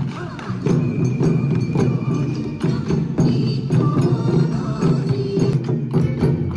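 Bon odori festival music: a Japanese folk dance tune with taiko drums and sharp clicking percussion keeping a steady beat.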